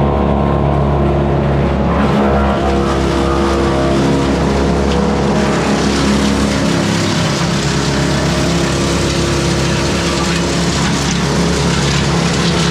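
Morbark Beever M12R wood chipper running steadily with its engine at a constant speed, a loud, even drone. A coarser rushing noise builds over it from about six seconds in.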